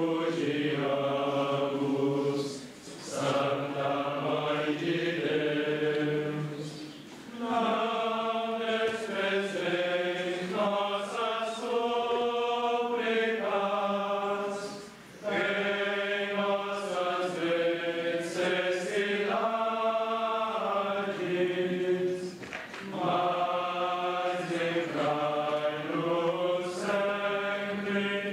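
A group of voices singing a slow sacred chant in long held phrases, breaking briefly for breath about four times.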